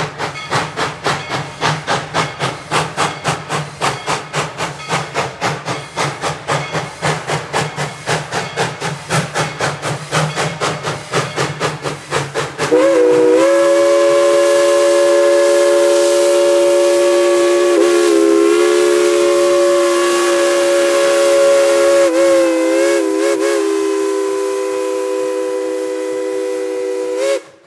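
Steam locomotive No. 190 working hard, its exhaust chuffing quickly at about four beats a second. About halfway through, its chime whistle sounds one long multi-note blast, held for some fourteen seconds and wavering briefly twice before cutting off.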